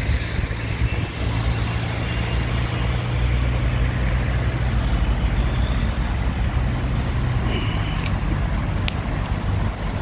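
Road traffic, with a vehicle engine running steadily close by until about seven and a half seconds in, when its hum eases off.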